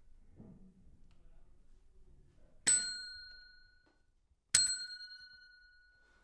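Chrome desk service bell struck twice, about two seconds apart. Each strike is a bright ding that rings on and fades away.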